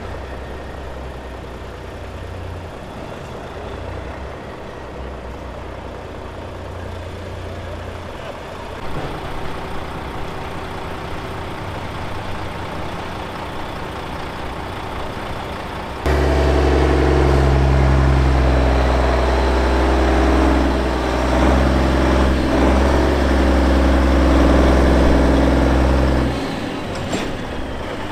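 Heavy diesel lorry engines running steadily. About halfway through a much louder, closer engine comes in suddenly, and it drops away a couple of seconds before the end.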